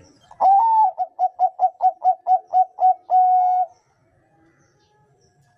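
Zebra dove (perkutut, Bangkok song line) singing one loud phrase: a long opening coo, a quick run of about nine short clipped notes, and a long held closing note.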